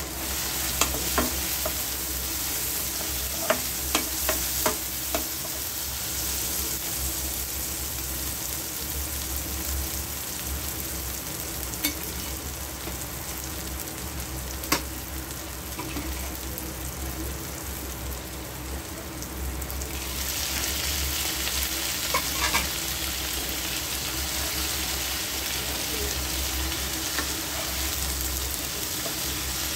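Food sizzling steadily as it fries in a pan, stirred with a spatula that clicks against the pan several times in the first few seconds and now and then afterwards. The sizzle grows louder about twenty seconds in.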